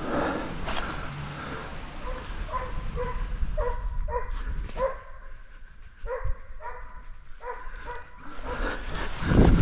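A dog barking over and over, about two barks a second, starting about two seconds in and running until shortly before the end. A louder thump comes right at the end.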